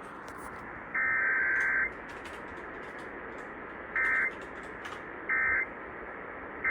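Emergency Alert System SAME digital data bursts received over a radio: a one-second warbling data burst, then three short end-of-message bursts about 1.3 s apart, with steady radio hiss between them.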